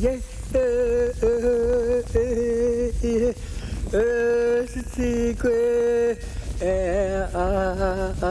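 A voice singing a chant-like song in long held notes with a wavering pitch, each note broken off by a short pause; near the end the notes become shorter and quicker.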